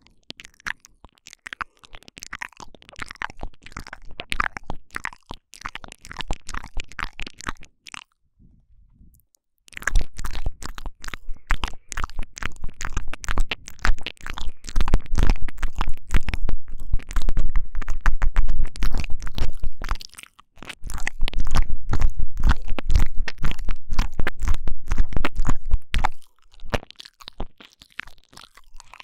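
Close wet mouth sounds made right at a binaural microphone's ear: rapid smacking, licking and tongue clicks. Lighter for the first eight seconds, then after a short pause much louder and fuller, with a deep rumble under the clicks, before thinning out near the end.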